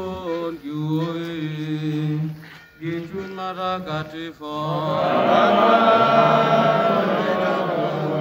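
Religious chanting: a lone voice chants a line, then about five seconds in many voices join together, louder, as a congregation sings the response.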